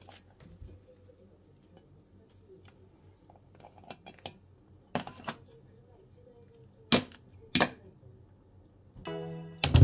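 A plastic colander knocked a few times against a stainless steel bowl as the roe is tipped out; the two loudest knocks come about half a second apart in the second half. Music starts just before the end.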